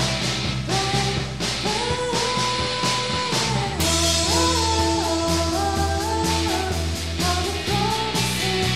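Rock music played by a band, with guitar and a singing voice carrying a gliding melody over drums and a steady low backing.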